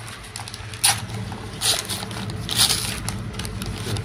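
Brown paper bag crinkling and rustling as it is torn open by hand around flatbread, with three louder crinkles about a second apart. A steady low hum runs underneath.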